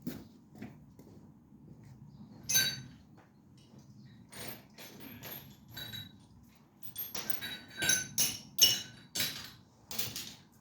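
Metal hand tools clinking and knocking against each other and against metal parts, in scattered strikes with a brief ring: a sharp clink about two and a half seconds in and a quick run of clinks in the last few seconds.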